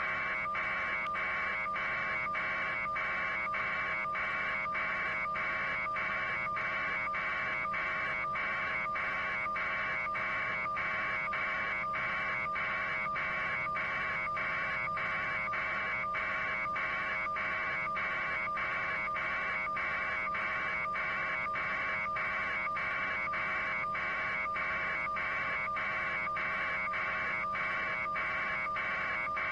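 Steady electronic buzz that pulses about twice a second, over a low constant hum.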